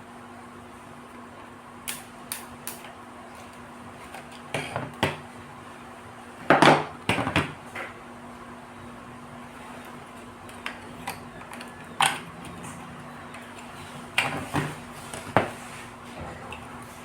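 Metal parts and hand tools clinking and knocking on a work surface during a teardown of the transfer switch: irregular sharp clicks, the loudest a cluster of knocks about six to seven seconds in, over a steady low hum.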